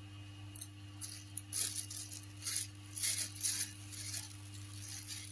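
Close-up eating sounds of a crisp fried fritter: a run of crackly crunching bites and chews from about a second in, over a steady low electrical hum.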